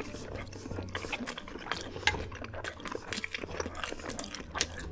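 Close-miked chewing of a mouthful of pasta shells in cheese sauce: a dense run of wet clicks and smacks.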